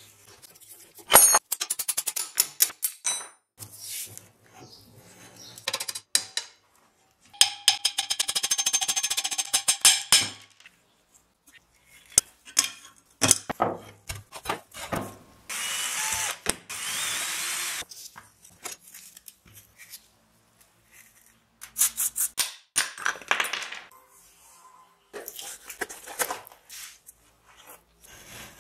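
Disassembly of a rusty steel wheel hub and fork: metal parts knocking and scraping, a power tool running steadily for about three seconds near the start, and a stretch of hissy rubbing a little past the middle.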